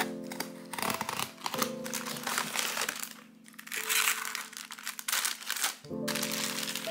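Plastic wrapping crinkling and rustling in long stretches as a packaged hotteok tray is handled and taken from its cardboard box, over background music with held notes.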